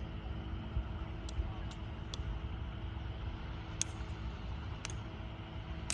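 Small boat's outboard motor running steadily at a distance, a low even drone, under wind rumble on the microphone. Six short, high chirps sound through it at irregular intervals.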